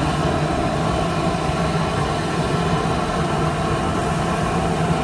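Automatic box-making machinery running: a steady hum with noise over it, without distinct strokes or clicks.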